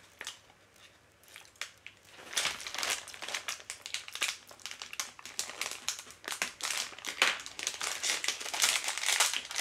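Plastic packaging crinkling and crackling as it is handled and opened by hand. Quiet for about the first two seconds, then a dense, irregular crackle.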